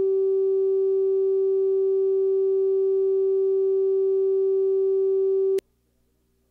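Steady electronic test tone at one fixed pitch, played under a TV station's commercial-insert slate to mark the break for a local commercial. It cuts off suddenly about five and a half seconds in, leaving near silence.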